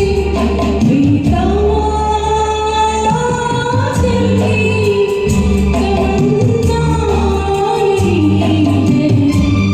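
A woman singing a Hindi film song over a karaoke backing track, holding long notes that bend and waver above a pulsing bass line.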